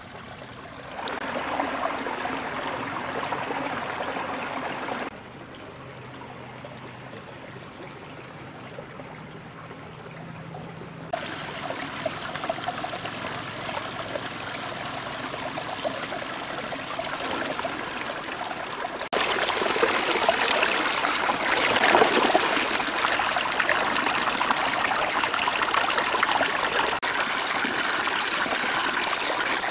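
Shallow rocky stream running and trickling, heard in several cut-together stretches of differing loudness. From about two-thirds of the way in, louder rushing and splashing water churns around a large fish caught in a woven bamboo trap.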